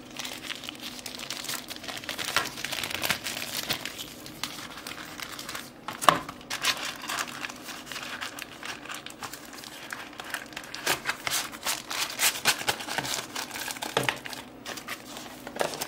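Plastic packaging and paper leaflets crinkling and rustling as small phone accessories are handled and packed back into their cardboard box, with one sharper knock about six seconds in.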